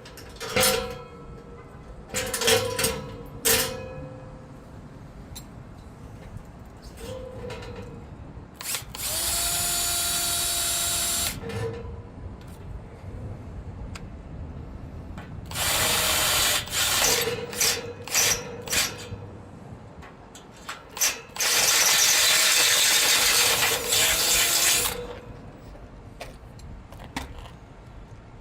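Power drill running in three longer spells and several short trigger blips, with sharp clicks and knocks between the runs.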